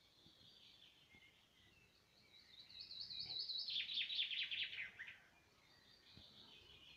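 Azores chaffinch (Fringilla coelebs moreletti) singing. About two seconds in comes one song phrase of nearly three seconds: a run of quick repeated high notes that then slide lower toward the end. Fainter bird song sounds before and after it.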